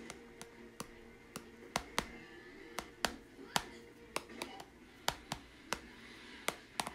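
Stylus tip tapping and clicking on a tablet's glass screen while painting: sharp, irregular clicks, two or three a second, some coming in quick pairs.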